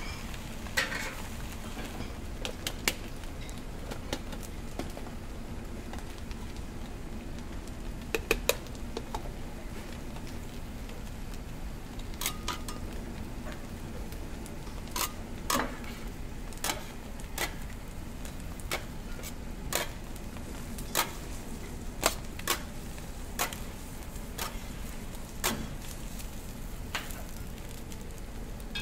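Beaten egg frying with a steady sizzle on a steel flat-top griddle, broken by sharp irregular clicks and taps of metal bench scrapers striking and scraping the griddle plate as the omelet sheet is spread and rolled; the taps come more often in the second half.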